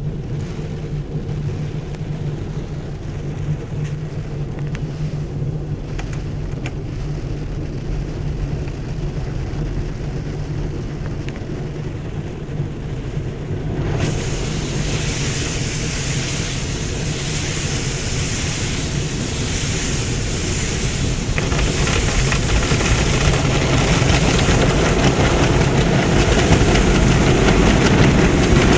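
Automatic car wash machinery running with a steady low motor hum. About halfway through, a loud rushing hiss starts abruptly and builds steadily louder toward the end.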